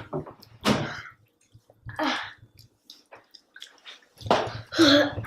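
A person throwing up after overeating chicken nuggets: several wet gagging and spitting bursts with gurgling and splattering, the longest and loudest near the end.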